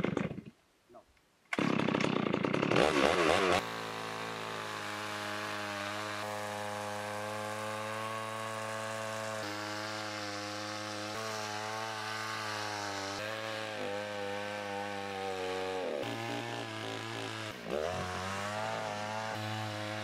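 Two-stroke chainsaw cutting through a felled log. It is loud and rough over the first few seconds, then runs on with a steady engine note under load, which sags in pitch twice near the end.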